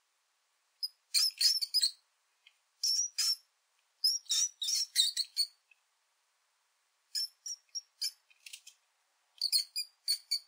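Mouse squeaks: short, very high-pitched squeaks in quick runs of several, repeated in about five bursts with silent gaps between.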